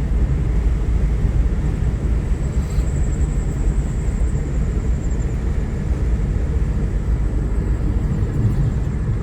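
Low, steady rumble of a car driving along a road.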